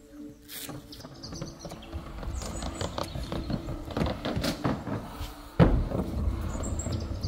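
Outdoor sounds: birds chirping briefly now and then over scattered knocks and clatter. A little over halfway through, a sudden louder low rumble sets in and continues.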